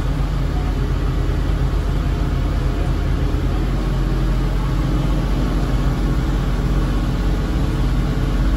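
Twin inboard diesel engines of a 43 ft Albin trawler running steadily, a continuous low drone heard from inside the pilothouse.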